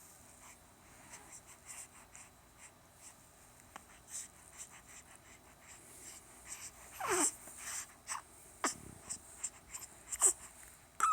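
A baby's small noises: soft snuffly breathing and faint clicks, with a few short squeaks that slide down in pitch, about 7, 8½ and 10 seconds in.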